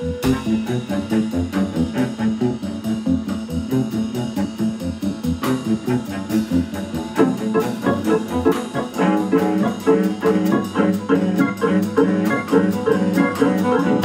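Live band playing instrumental music: a drum kit keeps a steady beat under keyboard, and the sound grows fuller and louder about seven seconds in.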